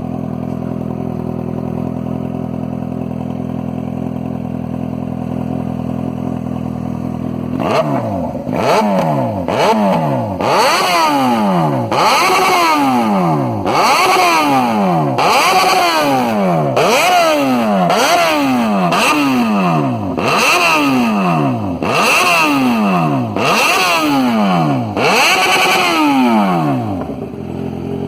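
Yamaha XJ6 inline-four engine running through a full stainless-steel sport exhaust with a carbon-finished tip. It idles steadily, then from about eight seconds in it is revved in a dozen or so sharp throttle blips, about one every one and a half seconds, each rising and falling back. It settles back to idle just before the end.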